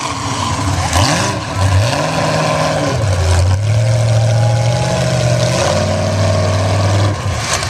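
Engine of a lifted full-size Ford Bronco mud-bog truck revving hard and unevenly as it churns through a mud pit, its pitch climbing and dropping several times as the throttle is worked.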